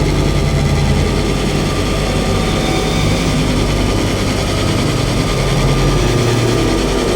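Dark ambient drone music from a Rucci Maximal Drone synthesizer processed through a Make Noise Strega, delay, reverb and a Chase Bliss Mood pedal: a steady, dense low drone under a noisy wash.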